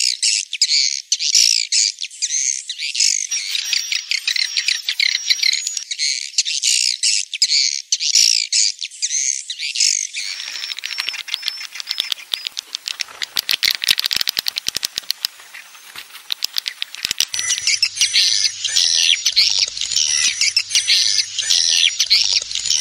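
Swiftlet lure call mixed from roosting swiftlet sounds: a dense chorus of high chirps and twitters. About ten seconds in it gives way to a stretch of rapid clicking, and the chirping returns near seventeen seconds.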